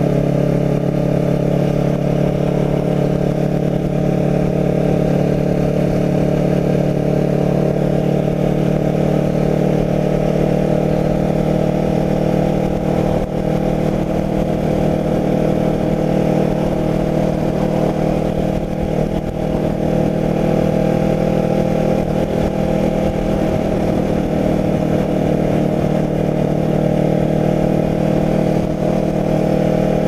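Kawasaki Ninja 650R motorcycle's parallel-twin engine running at a steady cruising speed, its pitch holding even throughout.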